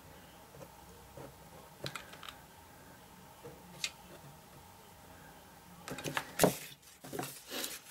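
Small clicks and taps of craft pieces being handled on a tabletop, with a louder cluster of knocks and rustles about six seconds in.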